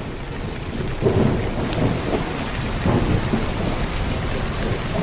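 Steady rain with thunder rumbling, the rumbles swelling about a second in, near two seconds and near three seconds.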